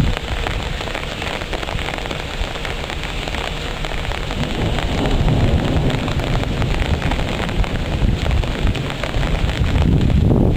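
Heavy rain pouring down in a thunderstorm, a dense hiss of drops throughout. A low rumble swells from about halfway through and is strongest near the end.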